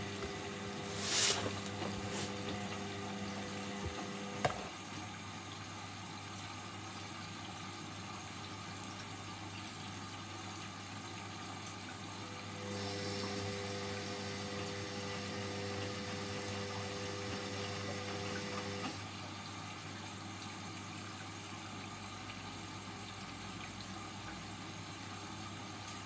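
Indesit front-loading washing machine running with water sounds under a steady low hum. The motor's whine stops with a click about four seconds in, comes back for about six seconds in the middle and stops again: the drum turning its load in stretches with pauses between.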